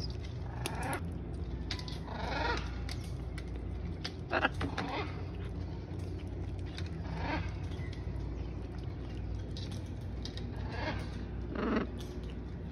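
Blue-and-gold macaws giving short, harsh calls every second or two, about seven in all, the loudest near the end.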